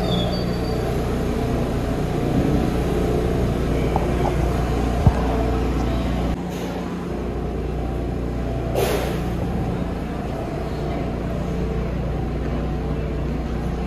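New York City subway train at the station, a low steady rumble with a sharp click about five seconds in, a step down in level a little after, and a short hiss of air near nine seconds.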